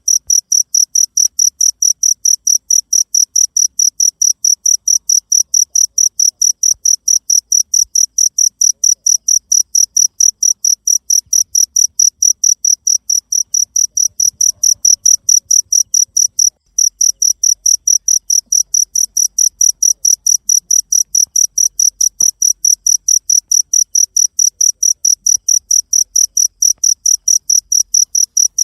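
Cricket chirping, a loud, very even run of high-pitched chirps at about four a second, with a brief break a little past halfway.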